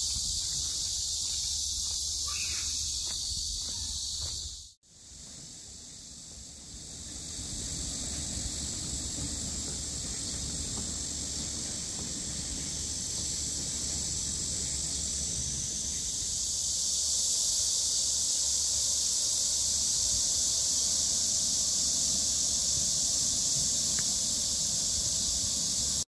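Steady high-pitched drone of a summer cicada chorus over a low rumble. It cuts out briefly about five seconds in, returns, and grows louder in the second half.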